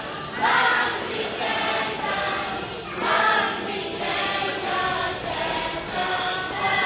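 A children's choir singing in held notes, with new phrases coming in about half a second in and again around three seconds.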